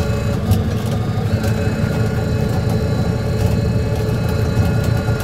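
Fishing trawler's diesel engine running steadily under way, a low drone with a few short clicks now and then.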